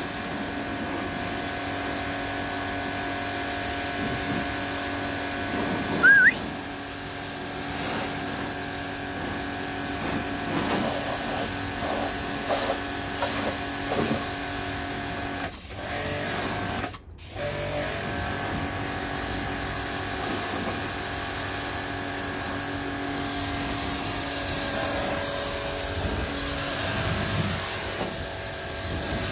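Pressure washer running with a steady motor-and-pump hum while a car is washed. A short loud rising squeak about six seconds in, and the hum dips out briefly twice just past the middle.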